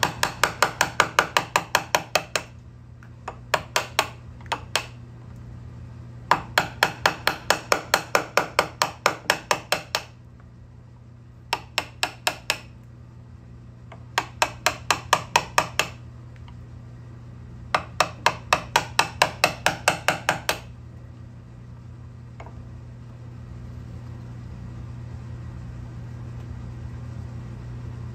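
A bench chisel struck in rapid light taps as it chops into the end of a walnut strip: six runs of quick strikes, about seven a second, with short pauses between. The strikes stop about two-thirds of the way in, leaving a steady low hum.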